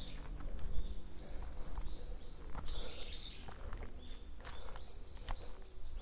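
Footsteps of a hiker walking a dirt and leaf-litter forest trail, with a bird calling in runs of short repeated chirps, a few a second.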